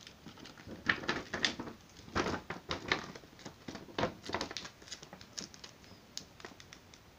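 Thin clear plastic packaging crinkling and rustling in irregular bursts as it is handled and folded by hand.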